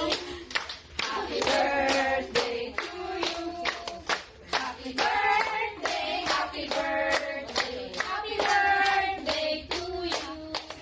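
A small group of voices singing together, with hand-clapping along in time.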